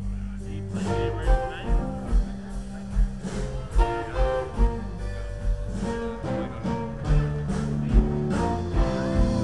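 Live blues band playing through the stage PA: amplified guitar lines over a bass line and a steady kick-drum beat.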